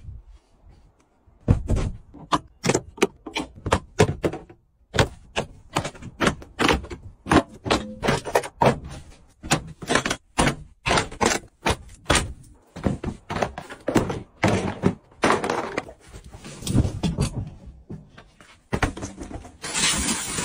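A rapid string of thuds and knocks, about two or three a second, as car interior trim and carpet are pulled out and handled. Near the end the steady hiss of a vacuum cleaner starts up.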